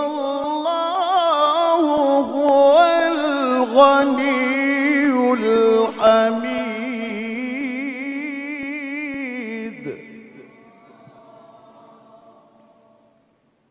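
A male qari's voice holding a long, ornamented melismatic phrase of Qur'an recitation, its pitch wavering and sliding between notes. It breaks off about ten seconds in and dies away in a long echo.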